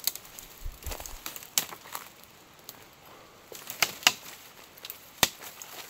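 Dry leaves, twigs and brush crackling and rustling as someone pushes on foot through dense dry scrub, with irregular sharp snaps and clicks.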